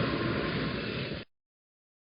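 Moving train's steady rail and running noise, fading slightly, then cut off abruptly a little over a second in, leaving silence.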